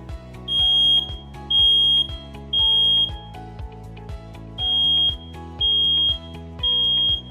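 Smoke alarm sounding its three-beep alarm pattern: two rounds of three steady, high-pitched beeps, each about half a second long, with a pause of about a second and a half between the rounds. Background music plays underneath.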